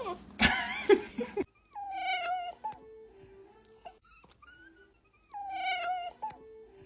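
Cat calling: a loud, harsh wavering yowl near the start, then two drawn-out meows about three and a half seconds apart.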